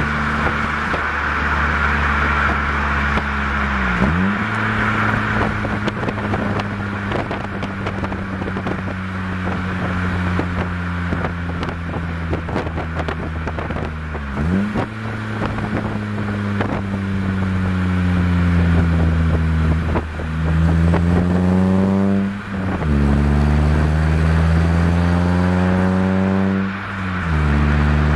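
Toyota Echo's 1.5-litre four-cylinder exhaust through a Scion xA TRD axle-back muffler, heard close at the tailpipe while driving. The note holds fairly steady at first, breaking briefly for gear changes about four and fourteen seconds in, then climbs steeply twice in the last third, with a shift in between and another near the end. A cloth wind sock flaps and rustles against the microphone, mostly in the first half.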